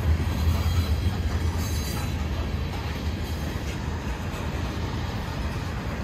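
Freight train cars rolling past, a steady rumble and rattle of wheels on rail.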